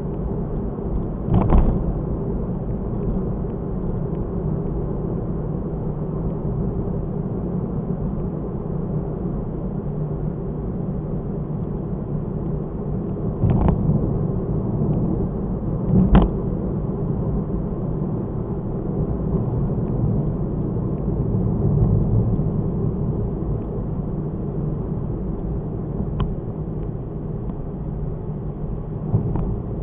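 Car driving, heard from inside the cabin through a dashcam: a steady low rumble of engine and road noise, with a few short thumps spread through it.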